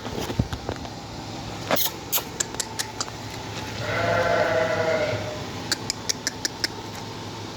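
A goat bleats once, a drawn-out call of just over a second, about four seconds in. Two quick runs of sharp clicks come before and after it.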